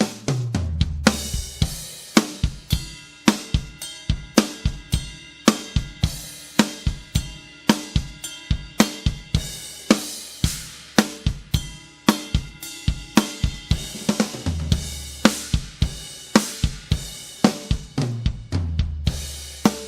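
Kingdo handmade cymbals played on a drum kit: a steady beat of about two to three strikes a second with cymbals and hi-hat ringing over snare and bass drum. Low drum notes stepping down in pitch come near the start, about three quarters through and near the end.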